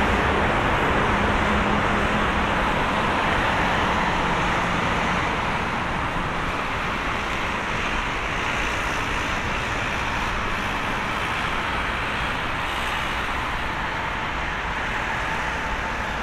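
Airbus A330-200 airliner's twin turbofan engines running as it rolls out on the runway after landing: a loud, steady rushing roar with a low hum that fades out about five seconds in, the noise easing gradually as the jet slows.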